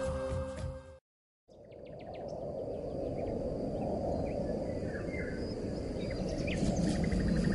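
Woodland outdoor ambience: a steady low rumbling noise with a few faint bird chirps and a thin, steady high insect tone above it.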